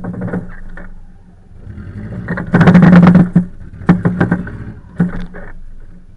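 Subaru Forester S/tb's turbocharged flat-four engine running as the car crawls over rough grassy ground on mud tyres. A loud burst of noise comes about two and a half seconds in and lasts nearly a second, with shorter bursts around four and five seconds in.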